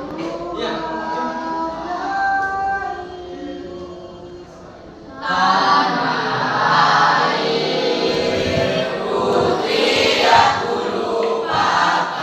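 A choir singing, softer at first and then swelling much louder and fuller about five seconds in.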